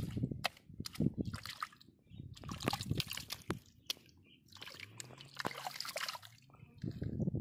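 Water sloshing and splashing in short, irregular bursts, with small clicks and knocks among them.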